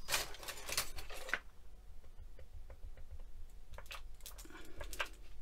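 Light clicks and short rustles of hands handling tools and clay on a glass craft mat. A few rustles come in the first second or so, sparse faint taps follow, and a few more come near the end.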